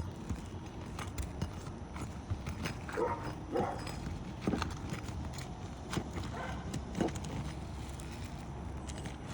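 Irregular knocks and taps on an asphalt shingle roof, scattered a second or less apart, from work with hand tools and feet on the shingles; a few short pitched sounds come a few seconds in.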